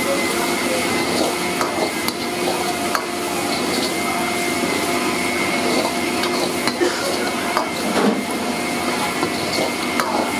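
Steel ladle scraping and knocking against an iron wok as chopped onions are stirred and fried, with scattered sharp clicks over a steady hum.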